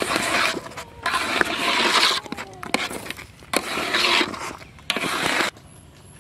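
Metal ladle scraping against the sides and bottom of an aluminium pot while stirring a thick white batter, in several long strokes with a few sharp knocks; it stops suddenly near the end.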